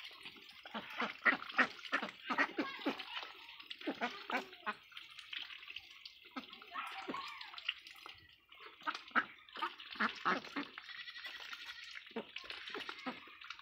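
A flock of domestic ducks dabbling at a shared bowl of wet feed: a busy, wet clatter and slurping of many bills in quick irregular strokes, with a brief lull partway through.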